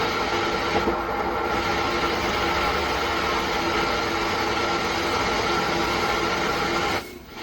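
Loud, steady hiss and static from the speaker of an MR MCR 125 120-watt solid-state amplifier, like an FM radio switched on with no station, with a faint steady tone running through it. It cuts off abruptly near the end. This is the amplifier's noise fault, which the repairer puts down to a problem somewhere on its BT board.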